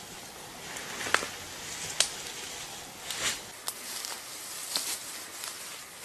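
Dry fallen leaves rustling and crunching as they are raked and scooped up by hand, with a few sharp clicks and snaps among them.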